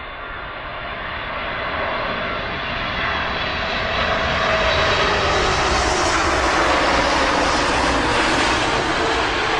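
Boeing 747-8's four GEnx turbofan engines passing low overhead on landing approach: a jet rumble and whine that swells over the first half, peaks about six to eight seconds in, and starts to fade near the end. The whine tones slide slightly lower as the aircraft goes by.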